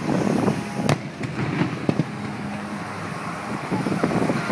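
Aerial fireworks going off: one sharp bang about a second in and a few smaller cracks, over steady background noise.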